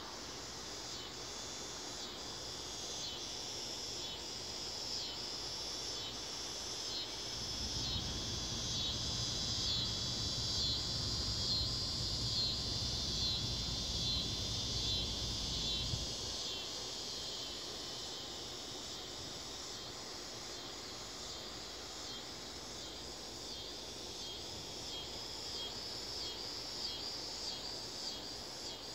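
A chorus of insects chirping in a steady, pulsing rhythm. A low rumble comes in for several seconds about a quarter of the way through, then cuts off.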